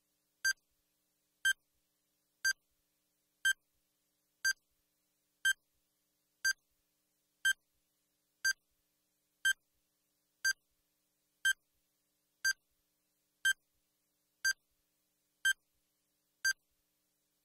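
Countdown timer sound effect: a short electronic beep once a second, with silence between the beeps.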